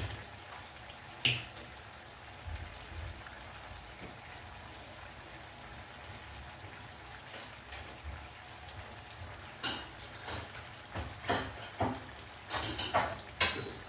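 Maida bondas deep-frying in hot oil in a kadai: a steady low sizzle with sharp pops. One pop comes about a second in, and more come in a cluster near the end.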